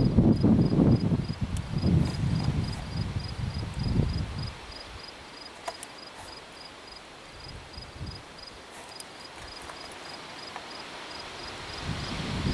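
Insects chirping steadily in an even high pulse, about two or three chirps a second. A low rumble fills the first four seconds and then dies away, and a few faint clicks come and go as the revolver is handled.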